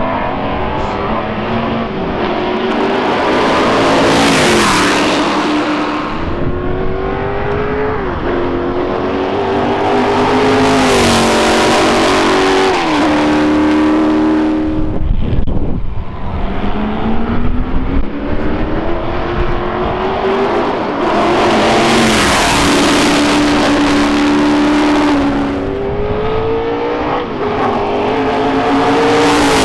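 Formula 5000 racing cars with 5-litre V8 engines accelerating hard past at full throttle, one after another. Each engine note climbs and drops back at every upshift as the car goes up through the gears, with several loud pass-bys.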